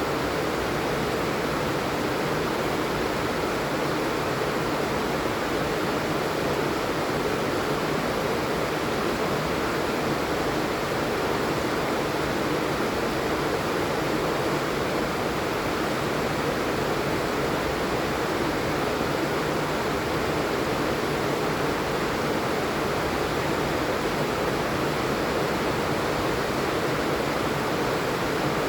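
Steady heavy rain falling, an even, unbroken hiss of noise at a constant level.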